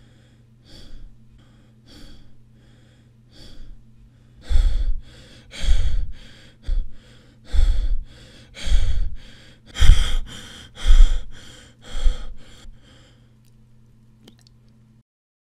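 A man breathing hard through the mouth, about one breath a second, faint at first, then loud and heavy from about four seconds in, dying away near the end. A low steady hum runs underneath and cuts off shortly before the end.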